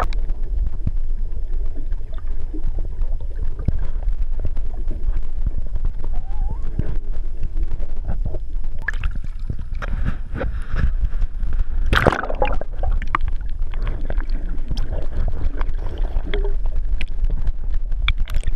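Underwater sound heard through a GoPro's waterproof housing held just below the surface: a steady muffled low rumble of moving water with scattered clicks and knocks. A louder burst of water noise comes about twelve seconds in.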